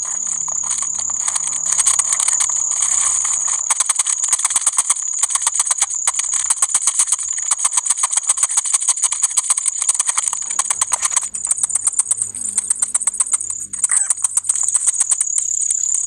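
A hoe scraping and turning a wet cement, sand and gravel mix on a concrete slab. A steady high-pitched buzz with rapid, even clicking runs under it.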